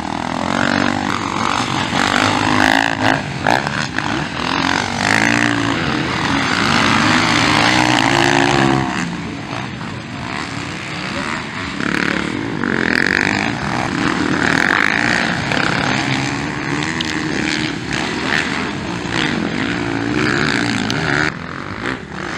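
Motocross bike engines racing on a dirt track, revving hard and easing off again and again, their pitch climbing and dropping with the throttle. The loudest stretch is a long climbing run about six to nine seconds in.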